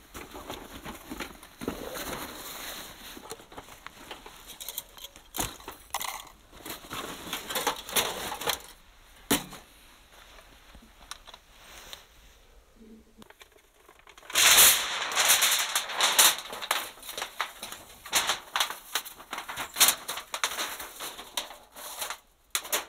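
Camping gear being handled: fabric and a bag rustling, then sharp metallic clicks and clatters as the parts of a folding titanium woodstove and its stovepipe are handled. A loud rustle or scrape comes about two-thirds of the way through, followed by a quick run of clicks.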